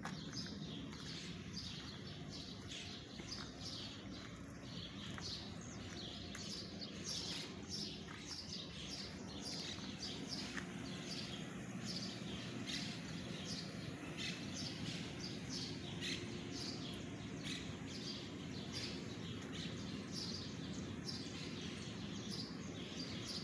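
Many birds chirping, with short high chirps repeating densely throughout, over a steady low background rumble.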